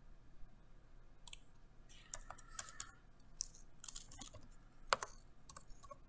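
Typing on a computer keyboard: an irregular run of short key clicks starting about a second in.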